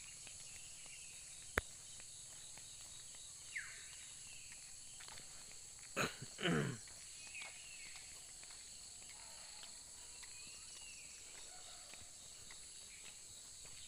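Steady high-pitched chorus of insects such as crickets or cicadas in roadside forest, with scattered faint bird chirps. A sharp click about one and a half seconds in, and a loud, short call that sweeps down in pitch about six seconds in.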